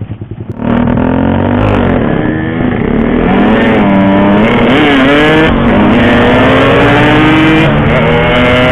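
Yamaha RX-King's two-stroke single-cylinder engine pulled hard from idle about a second in, revs climbing and dropping several times as the bike accelerates.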